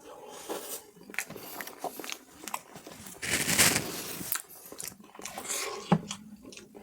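Close-miked eating of mutton nalli curry and puri: biting and chewing with many small wet mouth clicks, and a louder noisy rush lasting about a second in the middle.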